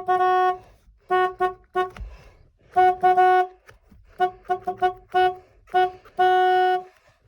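A camper van's horn honked over and over, about a dozen times, in quick short toots and a few longer blasts, all on one steady note.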